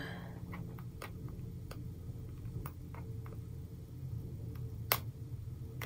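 Faint scattered clicks and light taps from fingers handling a sheet of date stickers, with one sharper click about five seconds in, over a low steady hum.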